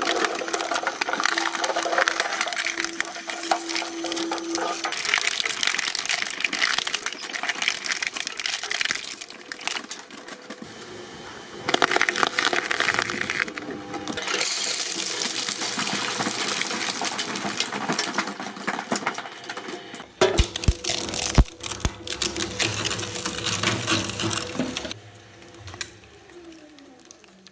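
Industrial shredding machines grinding and crunching material, a dense crackle of snapping and cracking. The sound changes abruptly several times as one machine gives way to another, and it is quieter near the end.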